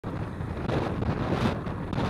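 Wind buffeting the microphone of a camera moving along a road, a steady low rumble mixed with road and traffic noise.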